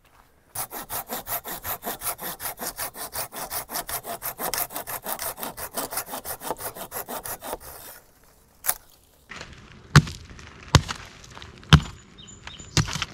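Small hand saw cutting through a branch in fast, even strokes for about seven seconds. Then, after a short pause, four sharp chopping blows into wood about a second apart as firewood is processed.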